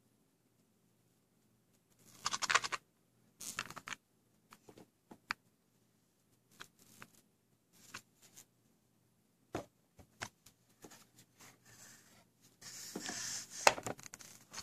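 Handling noise: cotton-gloved hands rubbing and scraping on a clear acrylic coin display block and a wooden presentation box, with several short scratches and a few sharp clicks, and a longer stretch of rubbing near the end.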